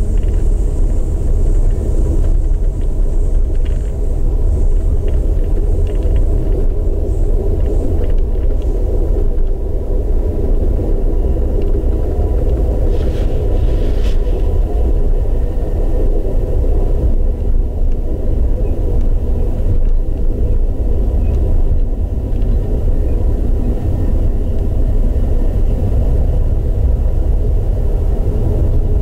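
Steady low rumble of an Amtrak Superliner passenger train running along the track, heard from inside the car: wheels on rail and car-body noise.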